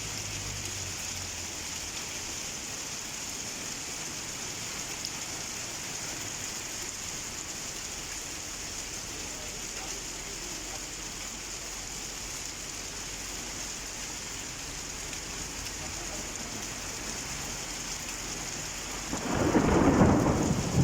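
Steady heavy rain falling, with a loud rumble of thunder near the end.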